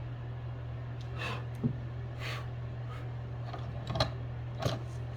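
Soft clicks and brief rustles of small parts being handled while a new LiPo battery's leads are soldered onto a Vector robot's circuit board, the sharpest clicks about four and four and a half seconds in, over a steady low electrical hum.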